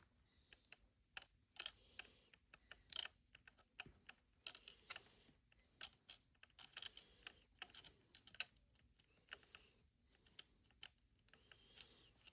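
Small plastic toy pieces being handled: a quiet, irregular run of light clicks and short rustles.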